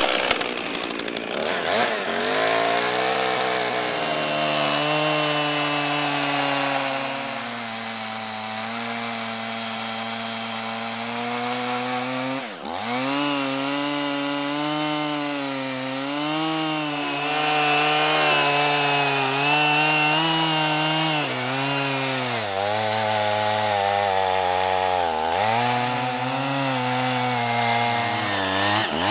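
Gas chainsaw running at high revs while cutting through a log, its engine pitch wavering as the chain loads in the wood. About twelve seconds in the revs drop sharply and climb back, and they dip twice more near the end.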